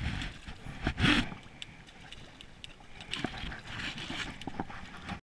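Water slapping and splashing among the breakwall boulders, with scattered clicks and knocks. The loudest splash comes about a second in, and a rougher stretch of splashing follows about three seconds in.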